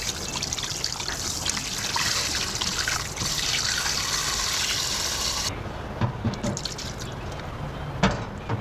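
Water running from a kitchen tap, stopping about five and a half seconds in, followed by a few short knocks.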